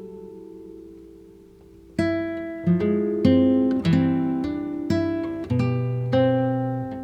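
Background music of plucked acoustic guitar: a chord rings out and fades, then a run of single plucked notes and chords begins about two seconds in.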